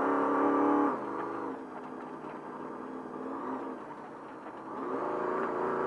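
Trophy truck's race engine heard onboard. It runs loud on the throttle for about a second, then eases off and runs quieter, and picks up again about five seconds in as the truck accelerates.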